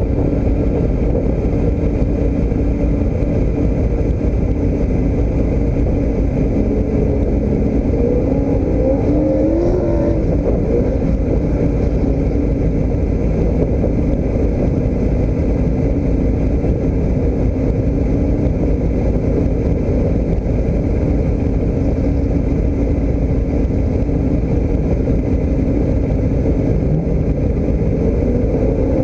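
Motor vehicle driving: steady engine and road noise, with short rises and falls in engine pitch about ten seconds in and near the end.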